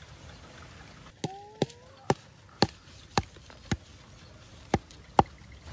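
A knife blade chopping sharply into a bamboo tube of cooked rice: eight knocks, mostly about half a second apart, with a short pause before the last two.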